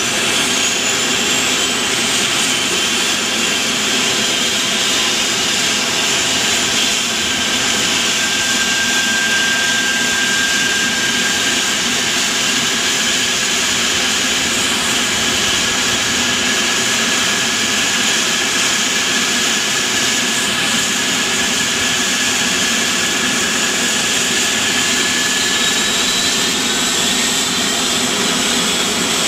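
Eurocopter EC135 trauma helicopter's twin turbine engines running on the ground: a loud, steady turbine whine with a high tone that rises over the first few seconds.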